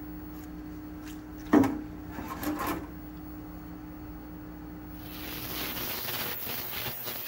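Anbull ultrasonic cleaner with a circuit board in its water tank. There is a steady low hum, then a sharp knock about a second and a half in, a smaller rattle a second later, and from about five seconds in a steady high hiss with crackle as the ultrasonic cleaning runs.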